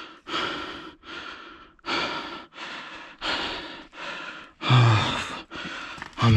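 A man breathing hard and fast, panting in and out about twice a second, with louder voiced gasps near the end. He is out of breath after running off in fright.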